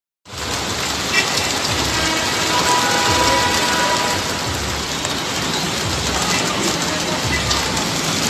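Heavy rain mixed with hail pelting a street, a dense steady hiss of stones and drops striking the wet pavement, with vehicles rumbling past through the water.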